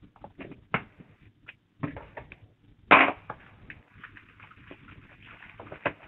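Plastic wrap on vacuum cleaner parts crinkling and crackling in irregular bursts as the parts are handled and lifted out of a cardboard box. The loudest crackle comes about three seconds in.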